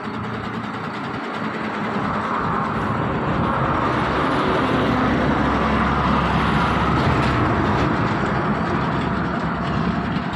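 Steady rumble of a running vehicle close by, swelling about two seconds in and then holding level.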